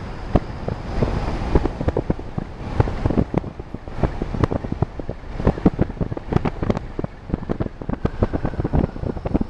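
Wind buffeting the microphone of a camera in a moving car, in irregular gusty thumps over a low, steady road rumble.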